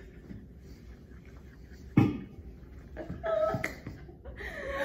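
A lull in the girls' laughter: a single sharp thump about two seconds in, then a brief soft laugh.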